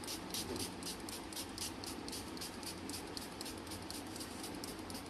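Small finger-pump spray bottle spritzing paint, short quick hisses repeated several times a second.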